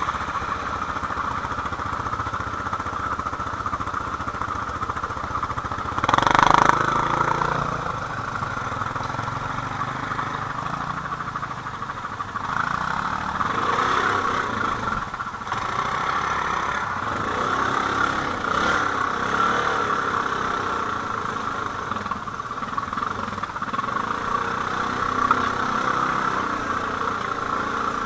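ATV engine running, its revs rising and falling unevenly, with a short louder burst about six seconds in.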